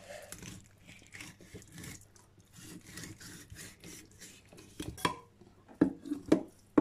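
A knife and hands working a whole raw salmon on a board: a run of quick rasping scrapes over the fish, then a few sharper knocks near the end.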